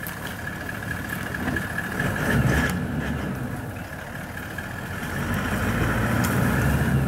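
Hunting truck's engine idling: a steady low rumble that swells and eases a little.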